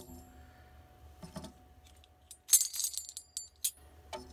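Tambourine jingles rattling as the tambourines are handled: a couple of light clinks about a second in, then a brief burst of metallic jingling midway that is the loudest sound.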